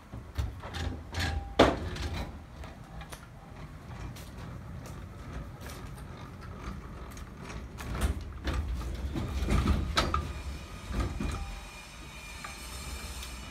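A loaded hand trolley carrying a heat pump unit is wheeled across a van's steel cargo-lift platform and into the van. Its wheels roll with a low rumble, with repeated clunks and knocks and one sharp knock about a second and a half in.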